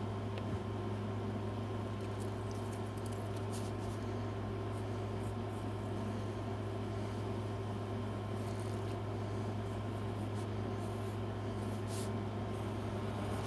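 A steady low mechanical hum, with faint light scratches of a mechanical pencil sketching on paper over a light pad.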